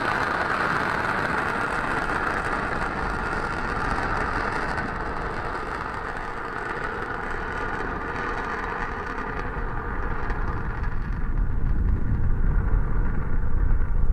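Falcon 9 first stage's nine Merlin engines firing during ascent: a steady rushing roar that turns deeper and louder over the last few seconds as its upper hiss fades.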